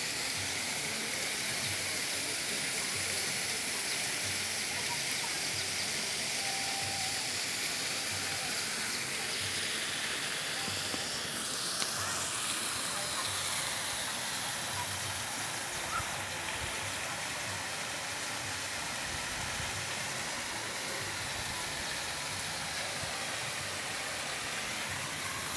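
Steady rushing water, an even hiss with no breaks.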